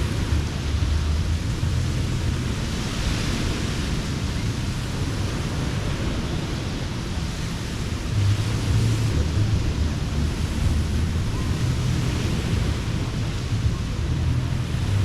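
Ocean surf on a beach: a steady wash of waves, swelling as a wave breaks about three seconds in and again about twelve seconds in, over a low rumble of wind on the microphone.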